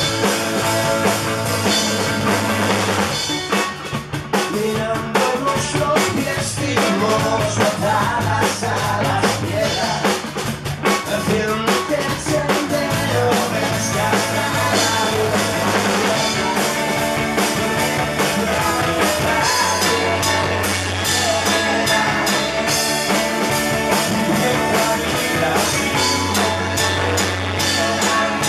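Live band playing at full volume on drum kit and electric guitar, with a brief dip in loudness about four seconds in.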